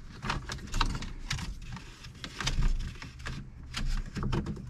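Irregular light clicks and knocks of the Jeep Gladiator's plastic centre-dash trim and wiring connectors being handled and fitted back into place.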